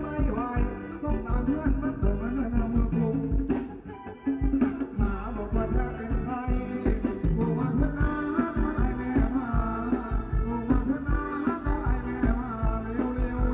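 Live Thai ramwong dance band playing an upbeat song with a steady drum and bass beat and a voice singing. The music dips briefly about four seconds in.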